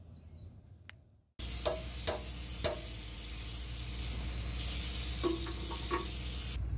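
Hammer striking a driver set on a new bush, knocking it into the rebored pin boss of a JCB excavator stick. About three sharp metallic taps with a short ring, then a quicker cluster of about four taps near the end, over a steady hiss.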